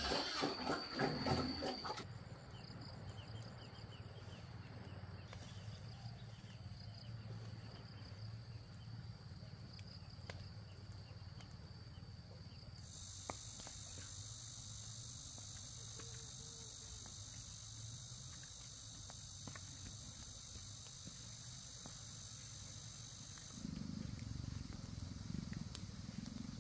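A steady, high-pitched buzz of insects comes in about halfway through and cuts off suddenly near the end, over a faint low hum.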